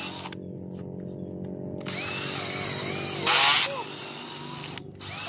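Small battery-powered cordless drill running steadily as its bit bores slowly into a hard jackfruit tree root. A brief louder noise cuts in about three and a half seconds in.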